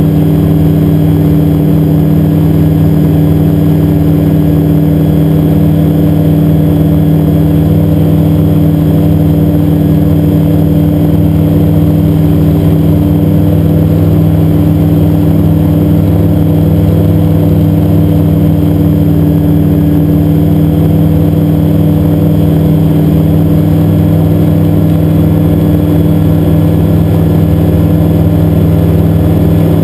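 Xenon IV gyroplane's engine and pusher propeller at takeoff power, heard from inside the enclosed cockpit during the takeoff roll and lift-off. A loud, steady drone whose pitch holds even throughout.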